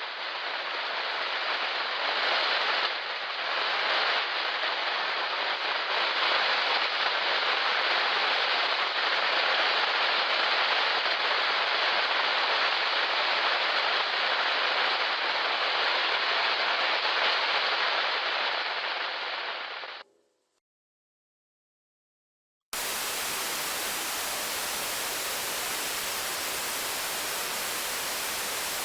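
White static noise like a detuned television: a muffled hiss that swells in over the first few seconds, holds steady, and fades out about twenty seconds in. After about two seconds of silence, a brighter, fuller hiss starts abruptly and runs on steadily.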